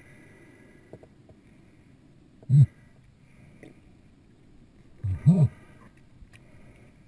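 Short, low, muffled gurgling sounds heard underwater from the diver, each bending up and down in pitch: one about two and a half seconds in and a quick pair about five seconds in, over a faint steady hiss.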